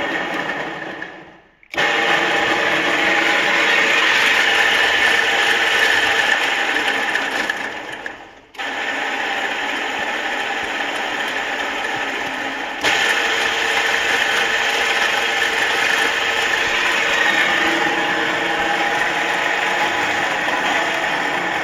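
Hobart PVM302 mobile mixer's three-phase electric motor running with a steady whirr, switched off and on. It cuts out about a second and a half in and starts again at once, runs down to a stop around eight seconds in and restarts, and gets suddenly louder a few seconds later.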